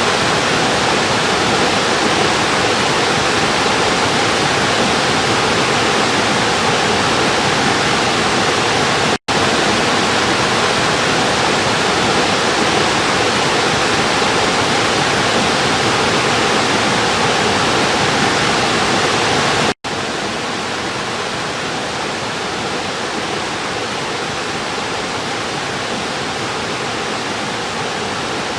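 River water rushing steadily. It cuts out for an instant twice, about a third and two-thirds of the way through, and after the second break it is somewhat quieter.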